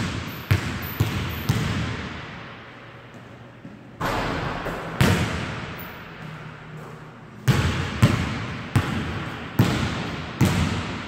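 Basketball bouncing on a hardwood gym floor: a few dribbles about half a second apart, a scuffing knock about four seconds in and another a second later, then a run of five slower dribbles near the end, each bounce echoing in the large hall.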